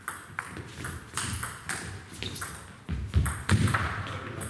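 Table tennis rally: the ball clicking sharply off the rubber paddles and the table in quick succession, with a few heavier low thuds about three seconds in.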